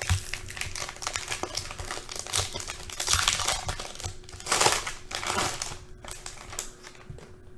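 Foil wrapper of a trading card pack crinkling as it is torn open and pulled off the cards, with louder bursts of crackling a few seconds in.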